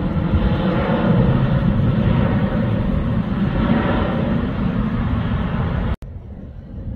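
Four-engine C-130 Hercules turboprop transport passing low overhead: a loud, steady propeller drone. About six seconds in it cuts off abruptly and a quieter, distant jet rumble follows.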